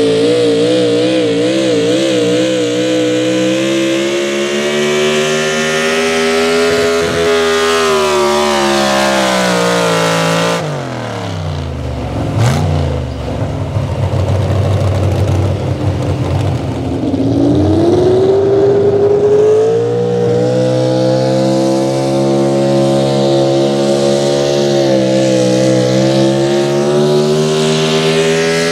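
Pro Stock 4x4 pulling truck engines at high revs under load, dragging the weight sled. The first engine's pitch wavers, then falls away about ten seconds in as its pull ends, and it runs low for a few seconds. Around seventeen seconds in, a second truck's engine climbs to high revs and holds there.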